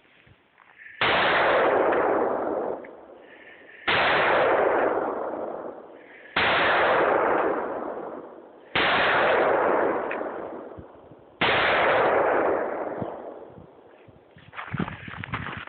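Taurus 608 .357 Magnum revolver fired five times, about two and a half seconds apart, each report ringing on and fading over a second or two.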